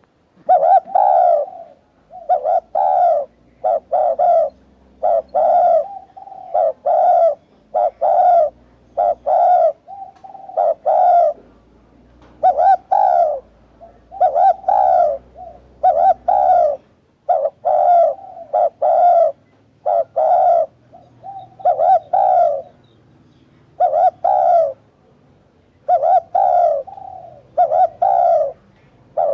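Spotted dove cooing: repeated phrases of a few short, husky coos each, one after another with brief pauses.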